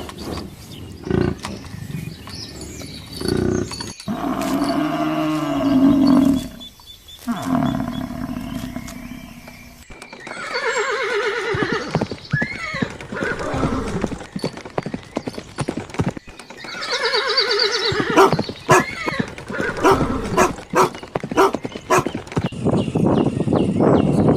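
Animal calls: a series of wavering, quavering cries, with short clicks between them and a change of clip about ten seconds in.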